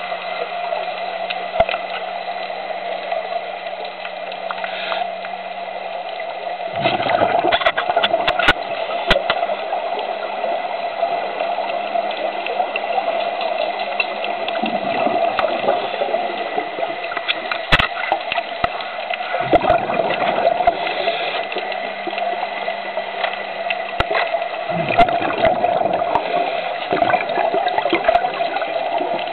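Scuba diver breathing through a regulator underwater: exhaled bubbles gurgle in four bursts, about every five to six seconds, over a steady underwater hiss with a faint low hum between breaths.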